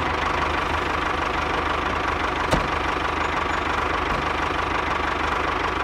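Diesel engine running steadily with a fast, even knocking chug. A single sharp click sounds about two and a half seconds in.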